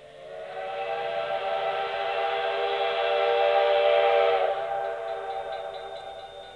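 Steam locomotive whistle blowing one long blast, a chord of several tones at once, which sags in pitch as it cuts off about four and a half seconds in and then fades away.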